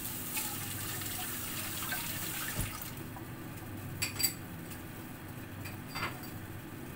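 A pot of broth simmering on a gas burner, bubbling steadily, with a few light clicks about halfway through and again near the end.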